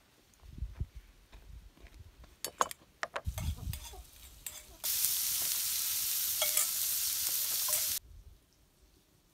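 A utensil knocking and scraping in a cooking pan, then a steady sizzle of food frying in hot oil for about three seconds that cuts off abruptly.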